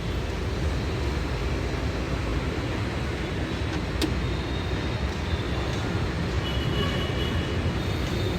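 Steady low rumble of vehicle noise, with one sharp click about four seconds in.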